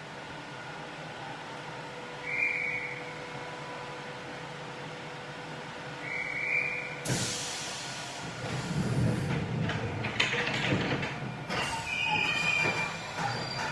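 Subway train at a station platform: a steady hum with two short high tones, then about halfway through a sudden rush of train noise that builds, with rumbling and brief high wheel squeals near the end.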